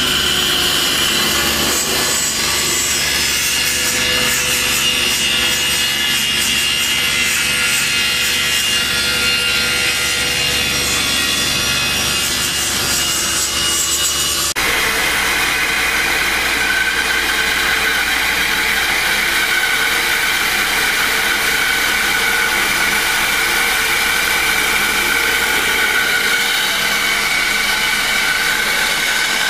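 Table saw ripping a thick walnut board on edge, a steady sawing noise of the blade in the wood. About halfway through it changes abruptly to a bandsaw cutting through the rest of the board, the last step of the resaw.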